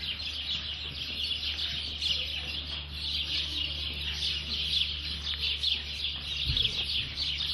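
Many small birds chirping and chattering together without a break, over a steady low hum.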